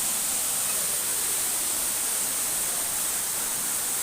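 Waterfall: a steady, even rush of falling water with a strong hiss.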